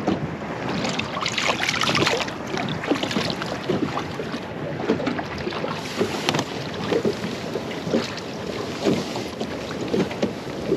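Choppy river water lapping and slapping against a small boat's hull, with wind buffeting the microphone.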